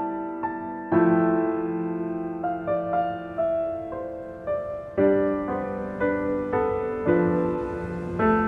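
Slow piano music: chords struck one after another and left to ring.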